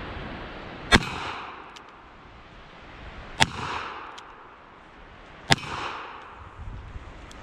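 Smith & Wesson Governor revolver firing three shots about two seconds apart, each followed by a short echo.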